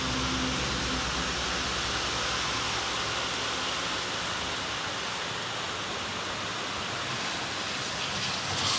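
Heavy rain pouring down steadily in a dense hiss. A low engine hum fades out in the first second or so, and the rain swells briefly near the end.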